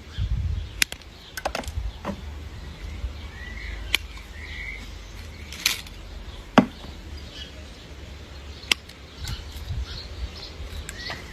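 Hand anvil pruning shears snipping stems: a handful of sharp, irregular clicks. Birds chirp a few times in the background over a low rumble.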